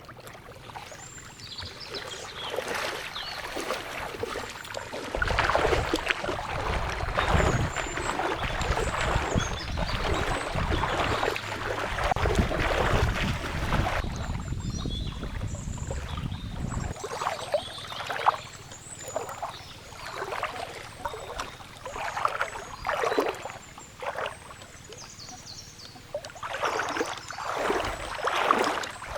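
Water splashing and sloshing in repeated surges, with short high chirps above it.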